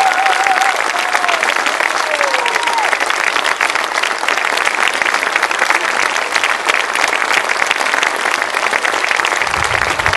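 Theatre audience applauding steadily, a dense patter of many hands clapping, with a few whoops from the crowd in the first three seconds.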